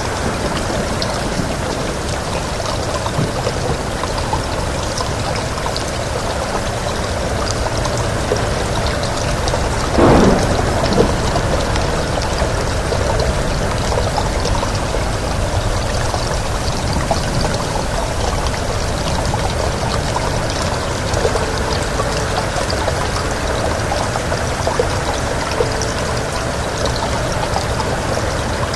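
Steady heavy rain, a dense even hiss of pouring water. About ten seconds in, one brief louder crack cuts through it.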